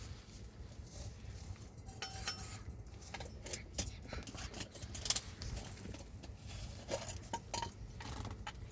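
Dishes and utensils being handled, with scattered clinks and knocks and a brief ringing clink about two seconds in.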